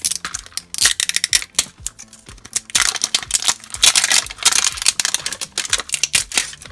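Thin plastic shrink-wrap crinkling and tearing as it is peeled off a hard plastic toy cauldron, a run of sharp crackles that is densest from about three to five seconds in. Faint background music runs underneath.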